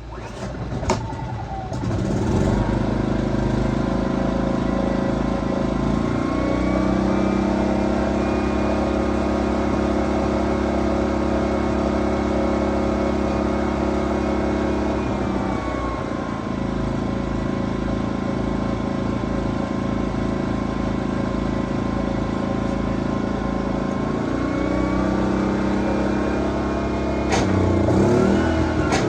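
Generac GP2200i inverter generator's small single-cylinder four-stroke engine catching about a second in and running, its speed rising, holding, dropping back, then rising again. A few knocks near the end.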